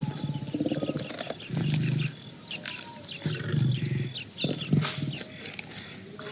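Tiger growling in several low, rasping bouts, with birds chirping in the background.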